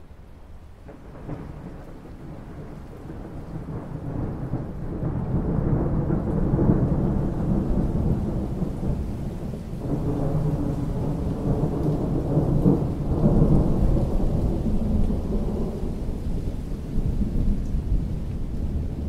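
Long rolling thunder rumble that builds over the first few seconds, swells twice, and eases off toward the end, over steady rain.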